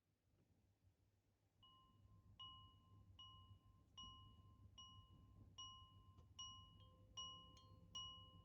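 Koshi chime of the earth-element 'Terra' tuning ringing softly, one clear note sounding about every 0.8 s, with a lower note joining near the end, over a faint low hum.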